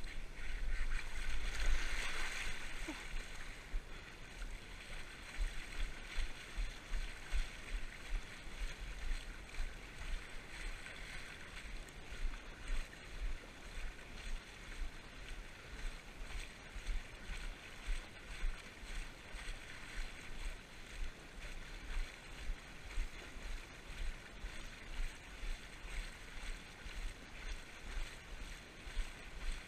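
Legs wading through shallow water, splashing and sloshing with each stride about once a second, louder about two seconds in.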